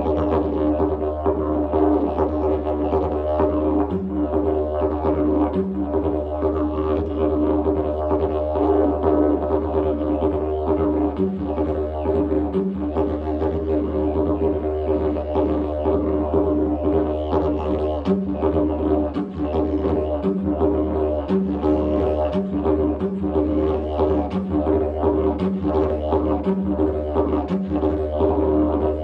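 Didgeridoo played continuously: a steady low drone with strong overtone bands, broken briefly about a dozen times by short dips and higher toots.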